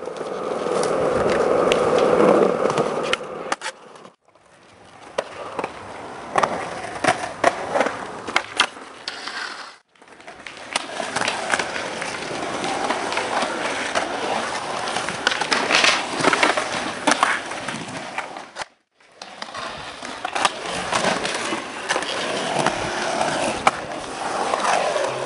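Skateboard wheels rolling on concrete with a steady rumble, broken by many sharp clacks and knocks of the board and trucks hitting the ground. The sound cuts out briefly three times between clips.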